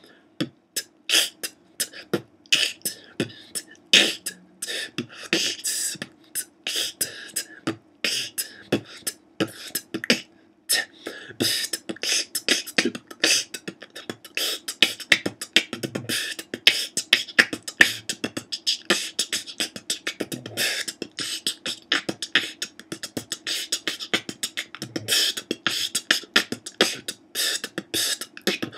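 Beatboxing freestyle: a fast run of bass kicks, hi-hats and rim shots made with the mouth, deliberately performed with poor, sloppy sound quality to show what bad beatbox sounds are like.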